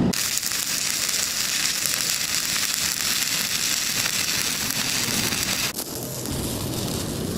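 Electric arc welding on iron plate: a steady, dense crackle and sizzle from the arc that starts abruptly and drops away about six seconds in.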